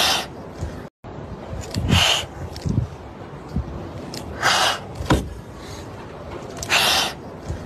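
Frightened kittens hissing in short breathy bursts, four hisses about two seconds apart, some with a low thump or spit beneath.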